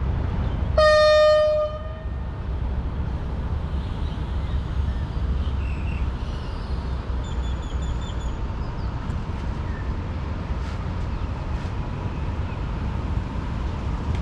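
Diesel train's horn sounding one blast of about a second, the departure signal, then the steady low rumble of the train pulling out.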